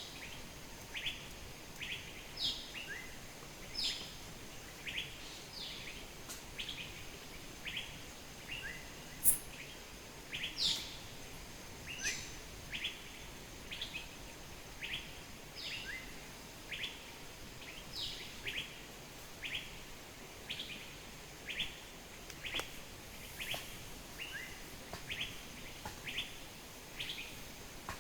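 A bird calling over and over with short, sharply falling chirps, about one and a half a second, over a faint steady hiss.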